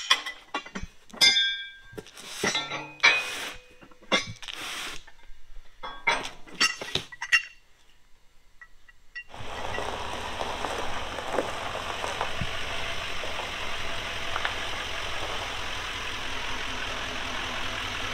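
Metal parts clinking and knocking as an airbag kit is unpacked from its box on a steel bench. About nine seconds in this gives way to the steady running of a Chevrolet Silverado pickup's engine as the truck drives into the shop.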